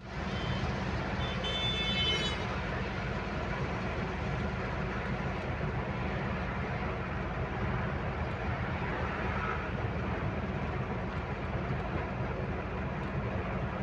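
Truck driving along a highway, heard from inside the cab: a steady low engine drone with road and tyre noise. About a second and a half in, a brief high-pitched tone sounds for under a second.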